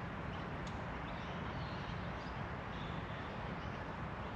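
Steady outdoor background noise with a low rumble, and faint short bird calls now and then.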